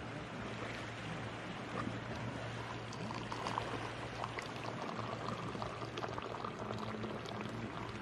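Tea poured from a metal teapot held high into a small glass: a steady splashing stream of liquid into the glass, growing clearer a few seconds in.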